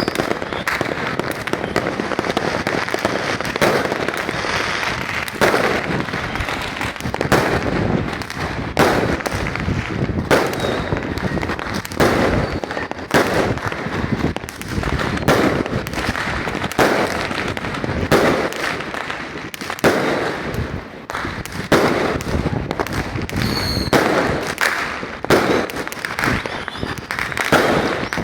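Many fireworks going off at once: a dense, continuous barrage of bangs, with louder booms standing out every second or so.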